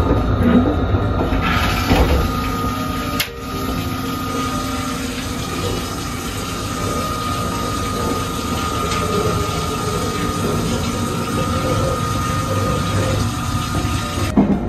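Running noise of a Nankai Rapi:t electric train at speed, heard inside its onboard toilet cubicle: a steady rumble with a steady high whine over it, and a sharp knock about three seconds in.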